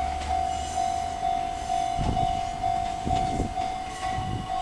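Level-crossing alarm ringing: one steady electronic tone pulsing on and off about twice a second, cutting off right at the end. Under it, a Fujikyu 1000 series electric train rumbles away, with a few wheel clacks over rail joints.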